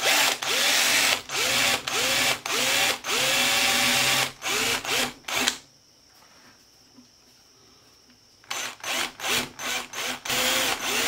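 Handheld power drill with a small bit, run in short trigger bursts to drill eye sockets into a lure blank of coffee beans set in resin; the motor pitch rises and falls with each burst. About halfway through it stops for roughly three seconds, then resumes with more short bursts.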